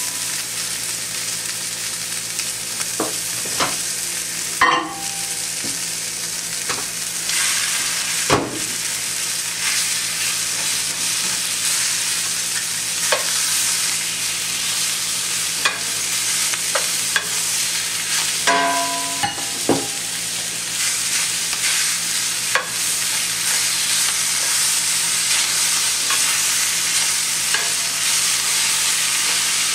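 New York strip steaks frying in a hot oiled pan with garlic and collard greens, sizzling steadily. Occasional clicks of metal tongs against the pan as the steaks are turned.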